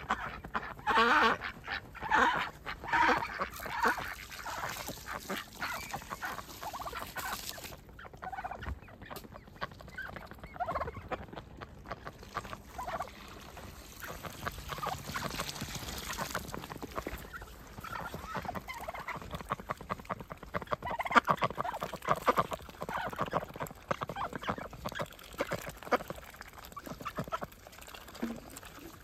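Domestic ducks quacking in repeated bursts of calls, loudest in the first few seconds and again past the middle.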